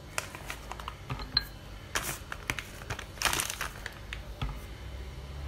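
Scattered light clicks and taps of handling in the kitchen, with two short rustles, like packaging being crinkled, about two and three seconds in.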